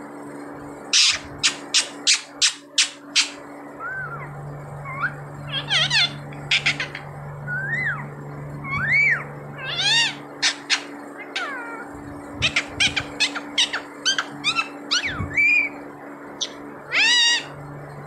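Rose-ringed parakeet (Indian ringneck) calling: a quick run of about six sharp, short screeches about a second in, then scattered rising-and-falling whistled calls. A second burst of rapid screeches follows, and a longer harsh call comes near the end.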